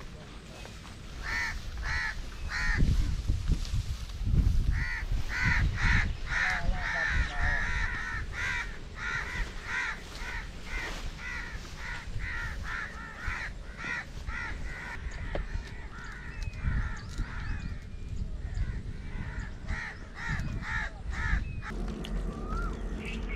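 Crows cawing over and over, about two or three caws a second, with several calls overlapping, over a low rumble.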